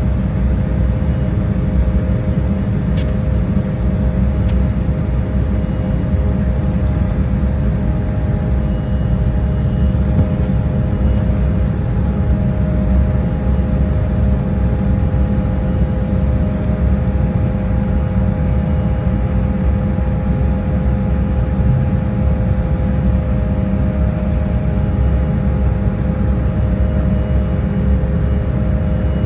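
Steady cabin roar of an Embraer E175 airliner in flight, from its two GE CF34 turbofan engines: a deep, even rumble with a few steady humming tones over it.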